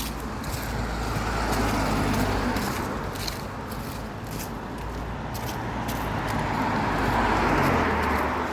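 Road traffic: two vehicles pass one after the other, each swelling up and fading away.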